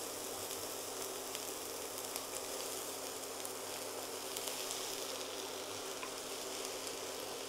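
Chopped onion and okra frying in hot olive oil in a frying pan, sizzling steadily, with a few light clicks from wooden spatulas stirring them.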